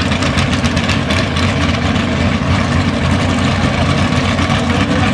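A steady low engine drone that neither rises nor falls in pitch or loudness.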